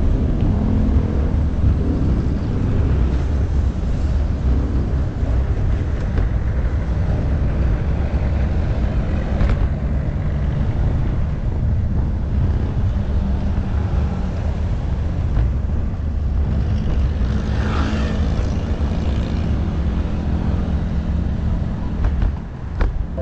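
Road traffic heard from a bicycle riding alongside it: a steady low rumble of vehicle engines and tyres, with a vehicle passing close about three quarters of the way through.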